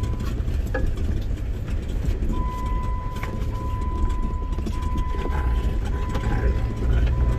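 Jeep driving over a bumpy dirt trail: a steady low rumble of engine and tyres, with scattered knocks and rattles from the body. A thin high steady tone sounds on and off through it.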